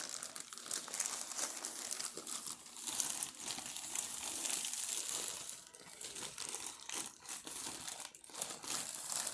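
Crinkling and crumpling of a shipping package being handled and worked open: a dense run of dry crackles that thins into scattered ones after about five and a half seconds.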